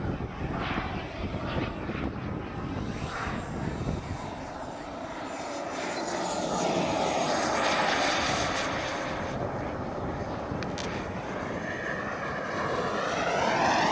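A model jet's gas turbine whining as a radio-controlled BAE Hawk comes in to land and passes close. The rushing noise swells to a peak about eight seconds in, with a high whistle that drops in pitch as it goes by. Wind buffets the microphone at the start.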